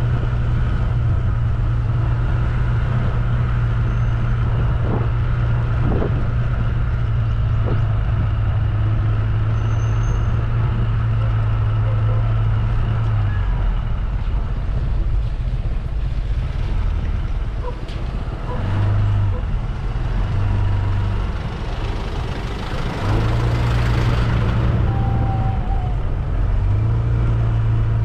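A vehicle's engine running as it drives along, a steady low engine hum that falls away about halfway through and picks up again a few seconds before the end.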